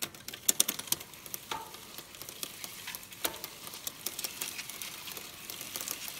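Bicycle chain turned by hand through a degreaser-soaked rag: a steady hissing rub of the links against the cloth, with a scatter of sharp clicks that are thickest in the first second.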